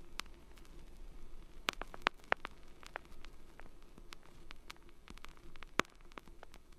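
Irregular sharp clicks and crackles, a dozen or so scattered through, the loudest a pair about two seconds in and a single one near the end, over a faint steady hum and hiss.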